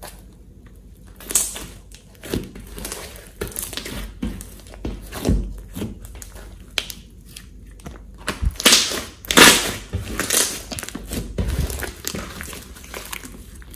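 A large blob of soft, glossy slime being stretched, poked and squished by hand, giving irregular sticky squishing sounds, loudest in a cluster about nine seconds in.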